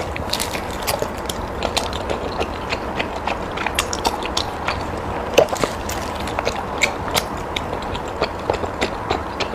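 A person chewing food close to the microphone: irregular wet clicks and smacks of the mouth, several a second, over a steady low hum.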